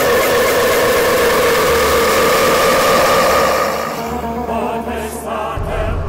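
Dozens of copies of one man's belch played over each other, building a loud, sustained wall of sound held at a steady pitch, which fades about four seconds in. A low rumble starts near the end.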